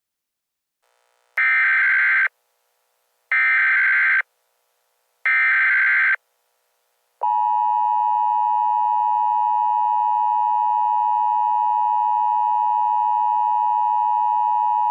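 Emergency Alert System SAME header: three short bursts of digital data screech about two seconds apart, followed a second later by the steady two-tone attention signal. Together they announce the start of an emergency alert broadcast.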